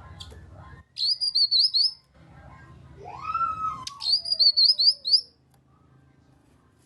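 Cucak kinoi singing, used as a lure song: two quick runs of sharp, high, hooked chirps, each about a second long. Between them a lower whistle rises, then slides slowly down.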